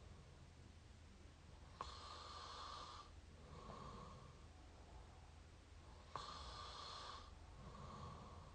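A person snoring through the mouth, recorded up close: two breathing cycles about four seconds apart, each a louder snore of about a second that starts sharply, followed by a softer breath.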